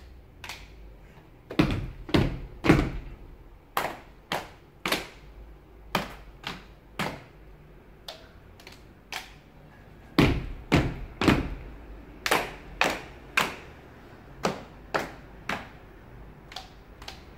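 Body percussion by a few people: hands patting the chest and belly and clapping together in a steady repeating rhythm, a series of dull thumps and sharper claps.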